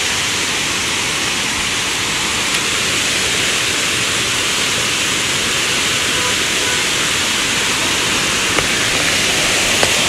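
Rushing water: a steady, even hiss that holds unchanged throughout.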